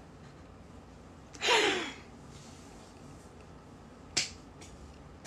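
A short breathy vocal exhale, falling in pitch, about a second and a half in, then two or three sharp light clicks near the end.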